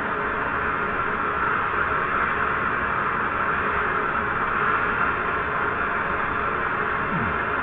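Soldering torch flame hissing steadily while heating a copper plumbing joint for soldering.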